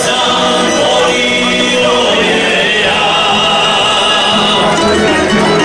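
A small live string band with upright bass playing dance music, with several voices singing along.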